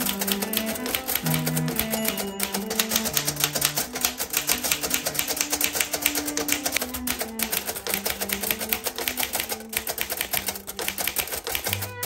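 Royal P portable typewriter being typed on quickly, a rapid clatter of keystrokes, over background music.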